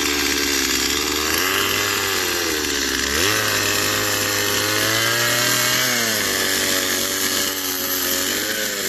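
Gas chainsaw running hard while carving and rounding the top of a small log. Its engine pitch sags and recovers several times as the chain bites into the wood and is eased off.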